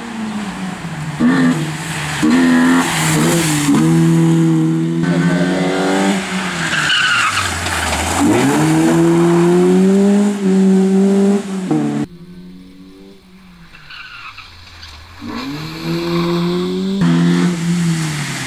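A BMW 318is (E30) rally car's four-cylinder engine revving hard through the gears. Its note climbs with each gear, drops sharply on lift-off and downshifts, then climbs again, with tyres scrabbling on the loose road surface. The sound cuts abruptly between passes and is quieter and more distant for a few seconds from about twelve seconds in.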